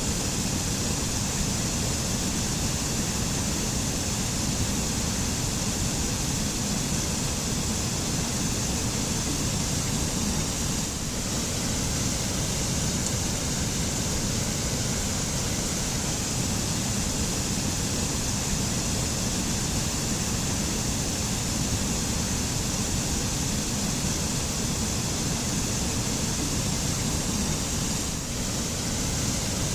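Waterfall: a steady, unbroken rush of falling water with a deep rumble underneath and a bright hiss on top.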